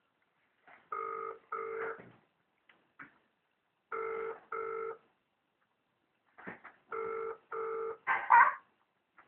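Telephone ringback tone heard through a phone's speaker: three British-style double rings, about three seconds apart, as the call rings out unanswered. A short, louder noise comes just after the third double ring.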